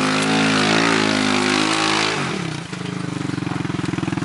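Yamaha Rhino UTV's single-cylinder engine revving under load as the spinning tyres churn through loose dirt on a steep climb, then dropping about halfway through to a steady, rapidly pulsing idle as the machine tops out.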